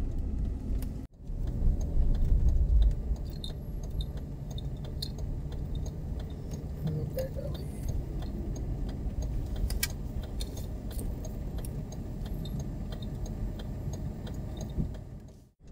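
Car cabin sound: a steady low engine and road rumble, louder for a couple of seconds after a brief cut-out just after one second in, with scattered light clicks and rattles over it.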